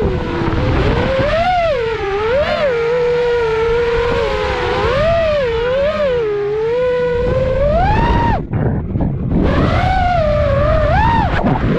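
FPV freestyle quadcopter's brushless motors whining, the pitch swooping up and down as the throttle changes. About eight and a half seconds in, the whine briefly drops away to a low rumble, as on a throttle chop, then comes back.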